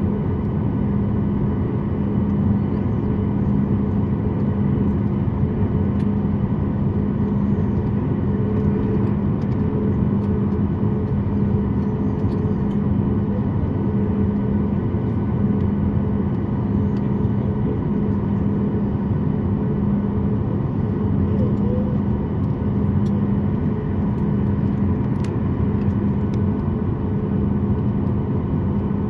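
Boeing 737 MAX 8's CFM LEAP-1B engines running steadily, heard inside the cabin as a loud, even rumble with a constant hum of several steady tones.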